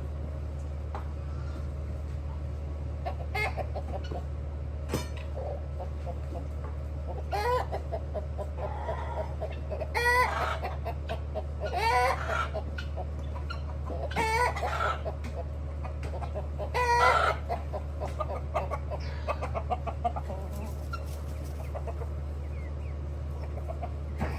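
Chickens calling and clucking: a series of loud, pitched calls every two or three seconds through the middle, over a steady low hum.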